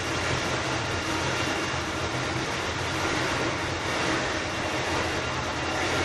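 Tour boat's engine running steadily under way, a constant low drone, with the rush of water churning in its wake.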